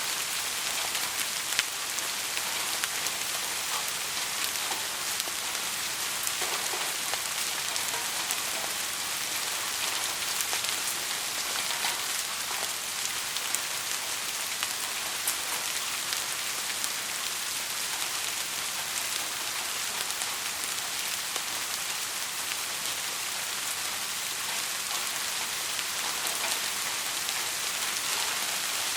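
Heavy rain falling steadily: a constant hiss with many sharp ticks of individual drops striking a surface.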